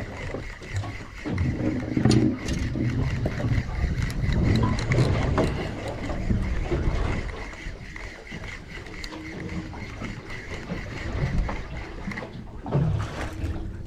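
Spinning reel being cranked steadily, a thin even whirr that stops near the end, over wind and water noise.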